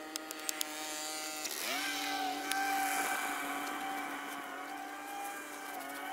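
An engine running at a steady pitch, which dips and climbs back up about a second and a half in. A few sharp clicks come near the start.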